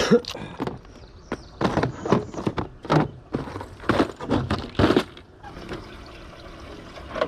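A run of knocks, thumps and splashes, about a dozen sharp ones over the first five seconds, then quieter, from a freshly caught bass being handled in a boat.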